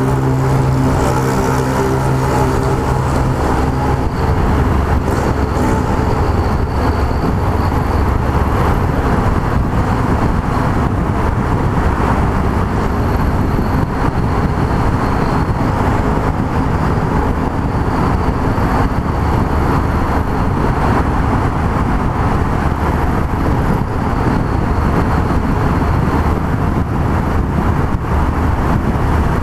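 Yamaha MT-03 660 single-cylinder motorcycle riding at a steady speed. A steady engine note is clear in the first few seconds, then mostly a loud, even rush of wind and road noise with the engine's low rumble underneath.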